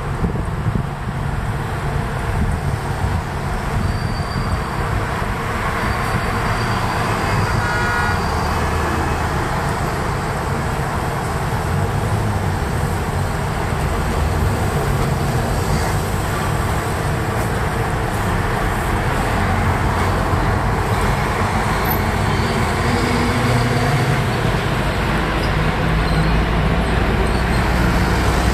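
City street traffic running steadily: passing motor vehicles' engines and tyres, with a vehicle horn sounding briefly about eight seconds in.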